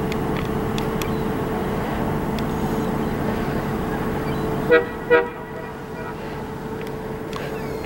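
Steady mechanical hum from the moored cruise ship MS Eurodam, with two short horn toots a split second apart about halfway through; the hum is a little quieter after them.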